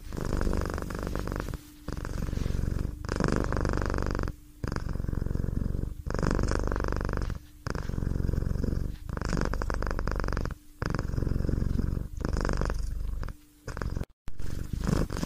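A domestic cat purring: a fast, low pulsing sound in phrases about a second and a half long, with a short break between each one as the cat breathes in and out.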